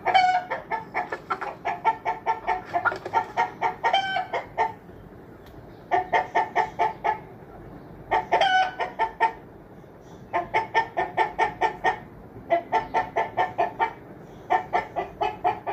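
Chicken clucking and cackling in quick runs of clucks, about five or six a second, broken by short pauses, with a few longer drawn-out squawks among them.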